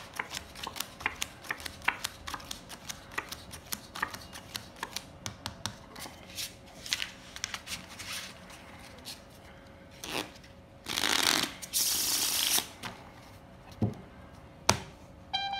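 Playing cards being handled and dealt: a quick run of card snaps and flicks, then two louder shuffles of the deck about ten and twelve seconds in, and two knocks as the deck is squared against the table near the end.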